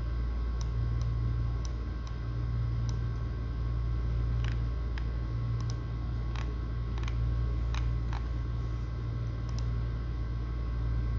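Steady low hum with a faint high whine, and irregular small sharp clicks, about fifteen of them, scattered through it.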